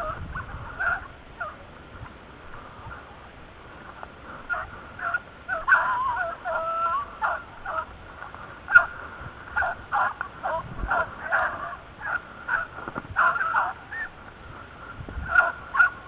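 Beagles baying in short, irregular yelps and bays, several voices overlapping in a flurry in the middle. This is typical of hounds giving tongue as they run a rabbit's scent.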